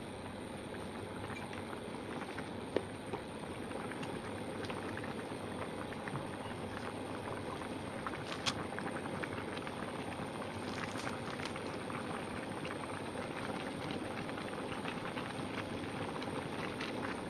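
Papaya gulai (curry) at a rolling boil in a deep pan: steady bubbling and popping, with a few sharp clicks here and there.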